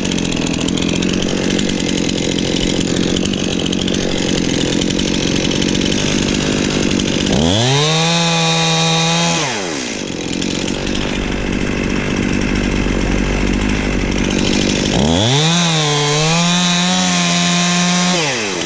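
Stihl two-stroke chainsaw making the felling cut through a standing tree trunk. The engine runs steadily while cutting, then twice revs up and holds for about two seconds, around the middle and near the end, dropping back lower in between.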